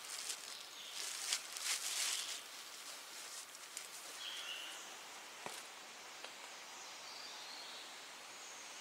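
Rustling of leaves and undergrowth in the first couple of seconds, then a few small clicks and faint forest ambience with several brief high chirps.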